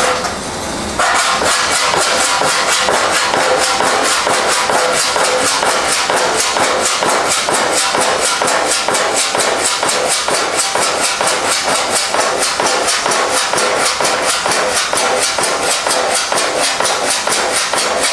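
Hand file rasping back and forth across a steel fender's ground TIG weld seam in quick, even strokes, starting about a second in. The seam is marked with Sharpie, so the filing takes the ink off the high spots and leaves the lows showing for planishing.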